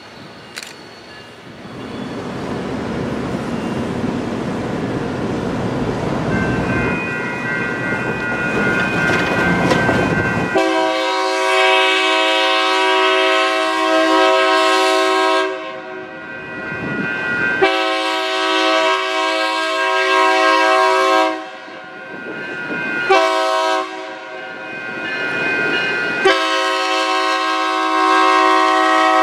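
A diesel switcher locomotive approaches with a rising engine and wheel rumble. Its multi-chime air horn, a Leslie RS3K, then blows the grade-crossing signal: long, long, short, long, the last blast still sounding at the end.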